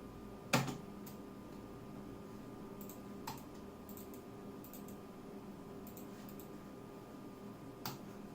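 Keys of a Flipkart SmartBuy wireless keyboard pressed one at a time during a typing test: a sharp clack about half a second in, softer ones about three seconds in and near the end, and faint ticks between, over a faint steady hum.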